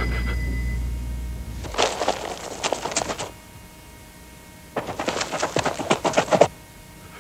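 Cartoon sound effect of a dog scrabbling in the dirt: two bursts of rapid scratching, each about a second and a half long, with a pause between. A chime fades out at the start.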